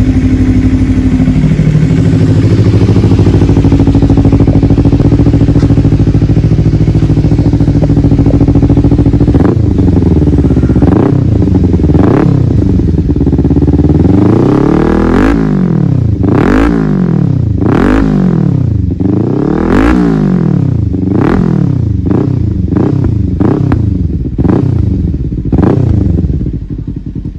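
Kawasaki Versys 300's parallel-twin engine through an aftermarket Yoshimura R77 replica exhaust, idling steadily for about nine seconds. It is then revved in a dozen or so quick blips, each rising and falling in pitch and coming faster toward the end.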